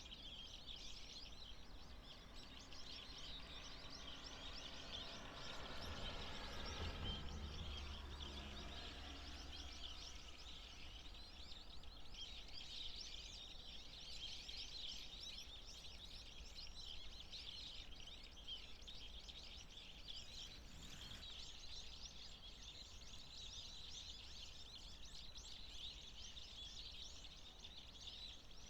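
A flock of waxwings calling continuously: many overlapping high, thin trilling calls. About a third of the way in, a low rumble swells and fades.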